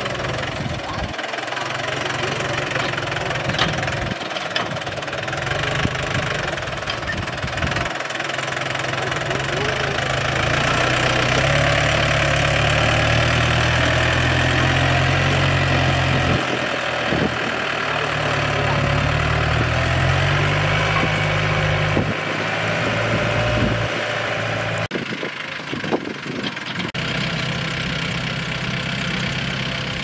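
Compact tractor's diesel engine running under load as it pulls a disc plough through dry rice-field soil, with a few short knocks along the way.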